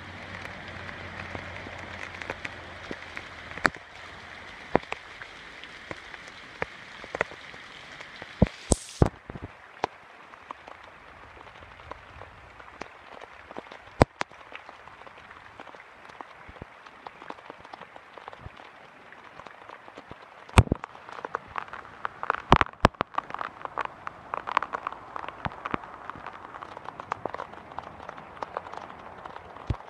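Rain falling on flooded ground: a steady hiss with many sharp, scattered taps of drops, the taps coming thicker in the last third.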